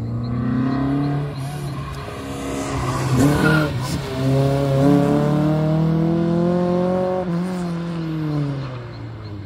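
Car engine on an autocross run, its revs climbing under acceleration and dropping back a few times, with a long climb through the middle and the pitch falling away near the end.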